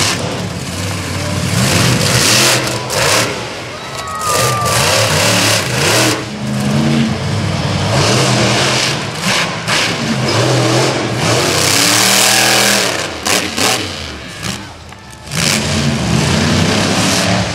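Monster truck engines (Summit Bigfoot, then Dirt Crew), supercharged V8s, revving hard and dropping back again and again as the trucks jump and climb a crushed-car pile. Sharp bangs and crunches from landings on the cars come between the revs. Near the end the sound dips briefly before another burst of revving.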